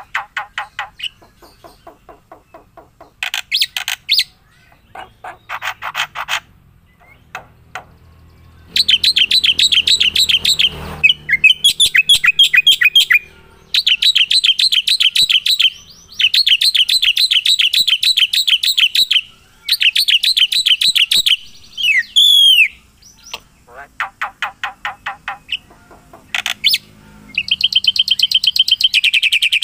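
A songbird singing long phrases of rapid repeated notes, with trills that switch between lower and higher pitches and short pauses between phrases.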